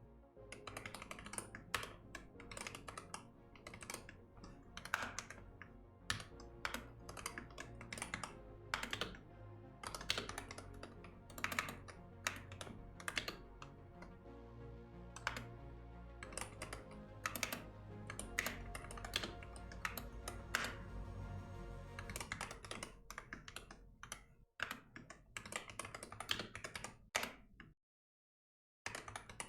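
Typing on a computer keyboard, irregular bursts of key clicks over soft background music. The music stops about three-quarters of the way through while the typing continues, then there is a brief pause before a few more keystrokes near the end.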